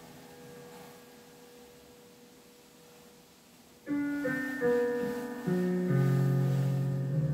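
Solo piano music: a held note dies away quietly, then new chords are struck about four seconds in, with more notes and deep bass notes joining over the next two seconds.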